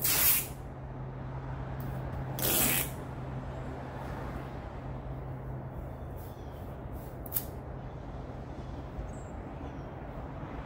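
Masking tape pulled off its roll in two short rips about two seconds apart, then pressed by hand along the edge of a body-filler-covered quarter panel, over a low steady hum.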